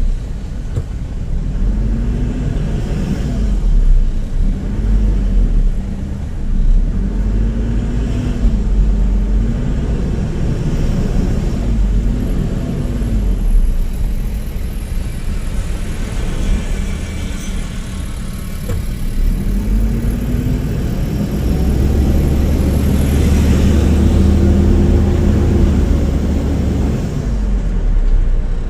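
Toyota Innova on the move with its automatic transmission working through the gears: the engine pitch climbs and then drops several times as the gearbox shifts up. Heavy road and engine rumble runs underneath, strongest in the second half.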